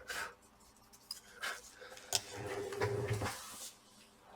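Handling noises of small hard objects: a few light clicks and knocks, then about a second of rubbing and scraping, as laptop fan parts and small cleaning tools are handled.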